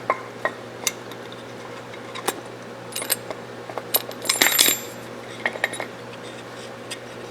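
Small metal rifle parts of a Mossberg 464 lever-action clicking and clinking as they are handled and fitted back together, with scattered sharp clicks and a busier burst of ringing clinks about four and a half seconds in.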